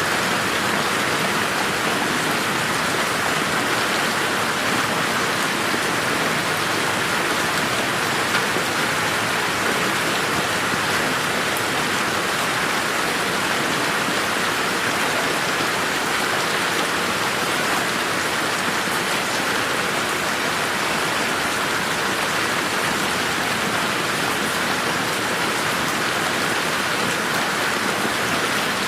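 Steady rain falling on a garden, an even hiss with scattered drops pattering on surfaces.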